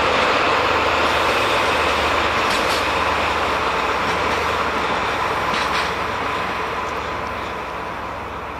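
Freight train hauled by DD51 diesel-hydraulic locomotives receding into the distance: a steady rumble of engines and wheels that grows fainter throughout.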